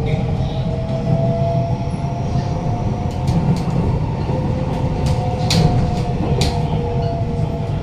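Inside a moving Kawasaki-CRRC Sifang C151C metro train: a steady low rumble with a whine that drifts slightly in pitch. Several sharp clicks come in the second half.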